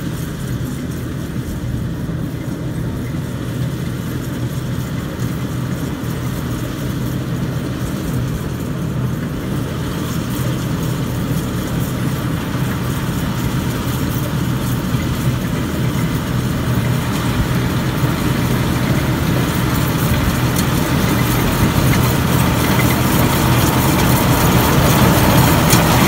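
Agrotech rice combine harvester running steadily as it drives closer, its engine drone and machinery noise growing gradually louder throughout.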